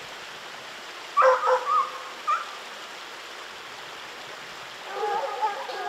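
Bear hounds bawling in the woods as they run a bear. There is one short bay about a second in and a brief yelp shortly after, then several hounds sound together near the end, over a steady background rush.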